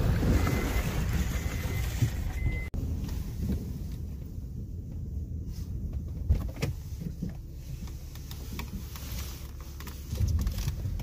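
Cab noise of a Honda Ridgeline pickup driving slowly over a rough, muddy, snowy trail: a steady low rumble of engine and tyres with scattered knocks and rattles. A short beep repeats about once a second in the first couple of seconds. About three seconds in, the sound breaks off abruptly and comes back quieter.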